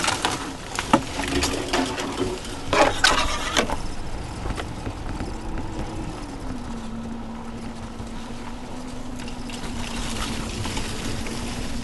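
Tracker EV electric side-by-side driving on a dirt trail: a steady electric motor whine that drops in pitch about halfway through, over tyre and chassis noise, with knocks and rattles from the body over bumps in the first few seconds.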